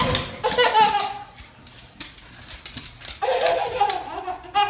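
Pitched, wavering vocal sounds: a first stretch in the first second and a second, longer one from about three seconds in.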